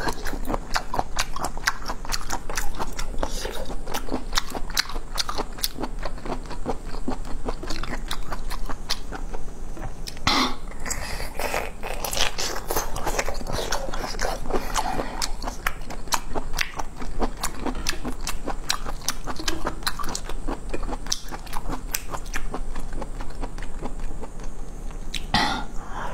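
Close-miked chewing and biting of raw geoduck siphon: a dense, steady run of wet crunching clicks, with a longer, louder noise about ten seconds in and again near the end.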